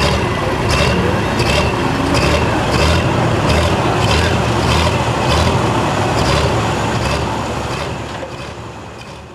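Turbocharged diesel pulling tractor idling at the sled after a pull, running with an uneven rhythmic lope and a thin turbo whine over it. The sound fades out near the end.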